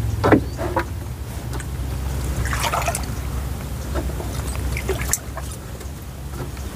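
Scattered rustles and snips as luffa gourds are cut from a trellised vine, over a steady low hum.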